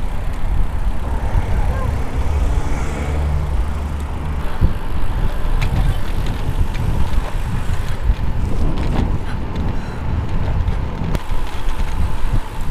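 Wind rushing over a helmet-mounted GoPro's microphone while riding a bicycle: a loud, buffeting low rumble with no clear pauses.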